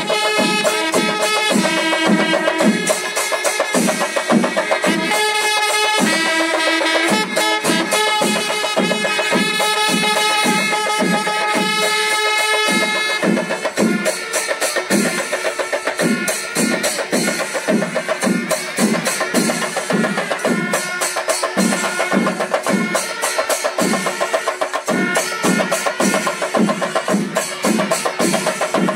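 Kerala chenda melam: a large ensemble of chenda drums beating a steady rhythm with clashing cymbals. For about the first thirteen seconds a pitched melody of held notes plays over the drums, then drops away, leaving the drums and cymbals.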